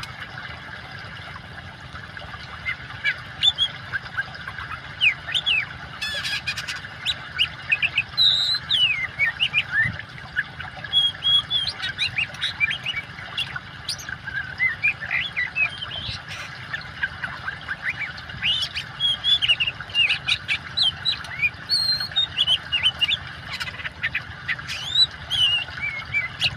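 Oriental magpie-robin singing a fast, varied string of whistles and chirps, starting a few seconds in, over a steady trickle of running water.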